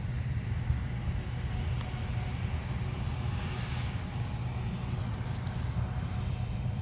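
Large diesel harvest machinery running steadily, a constant low engine drone.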